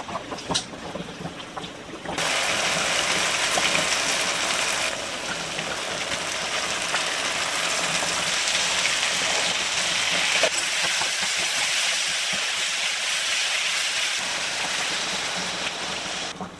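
Chilli paste, oil and vegetables frying in a hot wok: a few light spatula scrapes, then a steady sizzle that starts suddenly about two seconds in and cuts off near the end.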